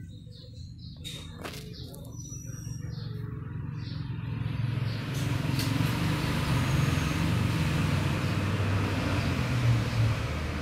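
A vehicle's engine grows louder over several seconds and stays loud until it eases near the end, like a vehicle passing close by. A few bird chirps sound in the first few seconds.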